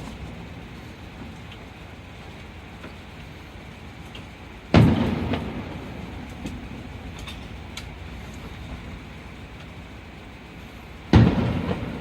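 Aerial fireworks bursting: two booms about six seconds apart, each trailing off in a rumble that fades over a second or two.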